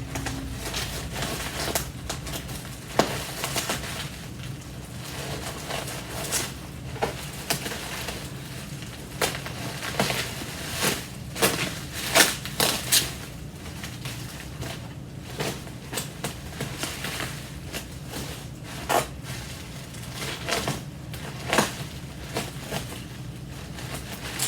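Packing material being pulled, crumpled and torn off by hand, giving a long run of irregular crackles and crunches.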